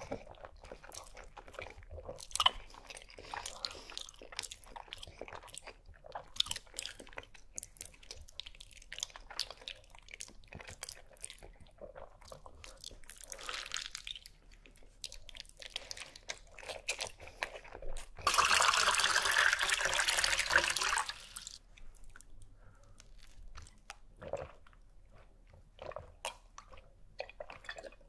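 Close-miked open-mouthed eating of macaroni and cheese by the handful: many small wet clicks, smacks and chewing sounds. About eighteen seconds in, a loud rushing noise lasts about three seconds.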